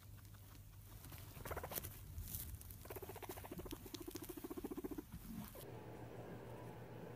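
Faint, rapid pulsing sound from a small animal, about eight pulses a second for around two seconds, after a couple of short faint sounds.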